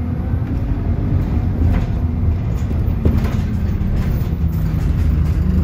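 Bus engine running under way, heard from inside the bus, with ride rattles. The engine note drops about halfway through, and there is a single knock about three seconds in.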